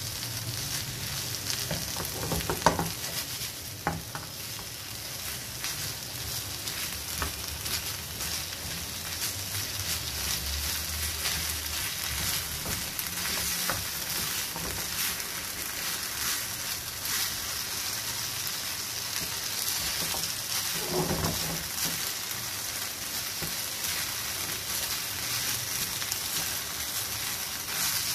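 Chicken, onion and capsicum filling in pizza sauce sizzling steadily in a non-stick frying pan while a wooden spatula stirs it, scraping and tapping against the pan. Two sharper knocks of the spatula come about three and four seconds in.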